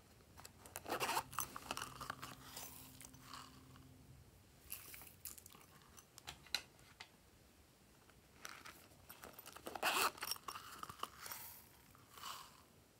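Faint crisp rustling and crinkling from small craft add-ins such as flakes, sequins and sprinkles being handled, poured and scattered onto slime in plastic trays. The sounds come in irregular clusters, loudest about a second in and around ten seconds in.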